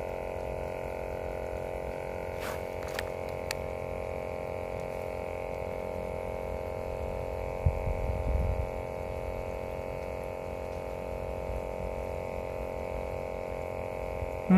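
A steady hum made of several even tones, with a few faint clicks about three seconds in and a brief low thump and rumble about eight seconds in.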